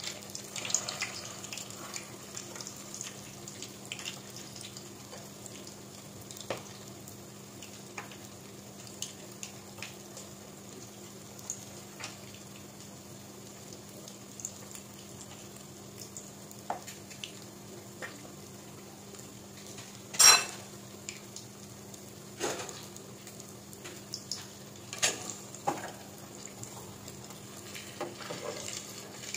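Kwek kwek, eggs coated in orange flour batter, deep-frying in hot oil in a pot: a steady sizzle. Scattered clicks and knocks of a metal utensil against the pot come through it, the loudest one sharp knock about twenty seconds in and a few more about five seconds later.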